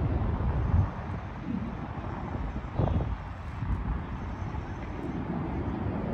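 Low, fluctuating outdoor rumble of distant vehicles, with brief knocks about one second and three seconds in.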